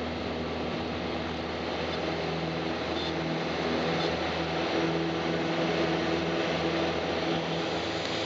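Piper light aircraft's piston engine and propeller running steadily at takeoff power, heard from inside the cabin, through the grass-runway takeoff roll and lift-off. The sound grows a little louder about halfway through.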